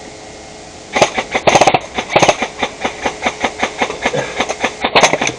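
Airsoft gun firing a rapid string of shots, about seven a second, starting about a second in.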